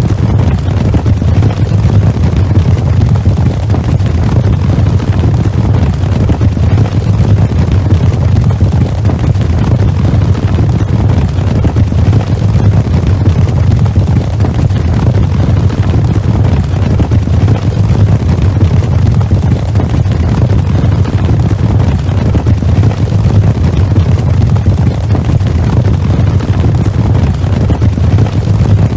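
Cavalry charge sound effect: many horses galloping together, their hoofbeats merging into a loud, steady low rumble.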